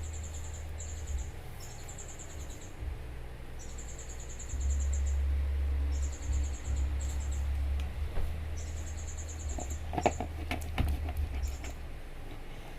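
Background insect chirping in repeated high trills, each about a second long, over a low hum. A few sharp clicks come about ten seconds in, from the slime being stirred.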